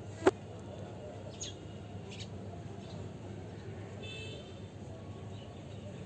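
Outdoor ambience with a steady low hum, broken by a single sharp click just after the start, then a few short, faint high bird-like chirps.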